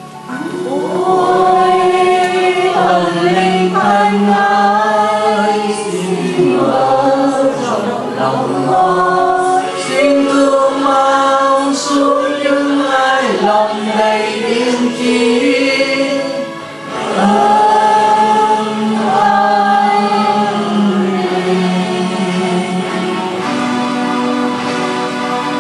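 A choir singing a slow Vietnamese hymn with long held notes, with one short break between phrases past the middle.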